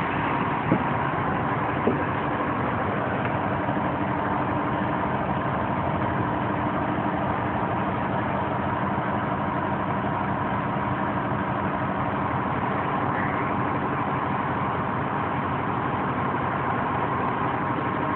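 2011 Dodge Journey engine idling steadily, with two light clicks about a second and two seconds in; the engine has a cylinder 2 misfire (code P0302) traced to low compression in that cylinder.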